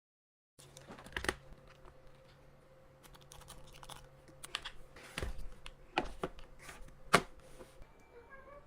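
Hands handling a laptop and its packaging: scattered taps and clicks with light rustling, the sharpest knocks about a second in, around six seconds and just after seven seconds.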